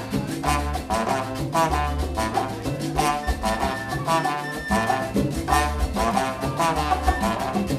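Live salsa band playing: brass horn phrases repeating over keyboard, bass and Latin percussion.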